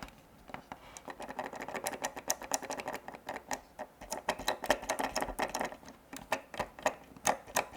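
Small plastic Happy Meal figurine handled close to the microphone: quick, irregular clicks and taps of hard plastic parts, several a second, over a light rustle.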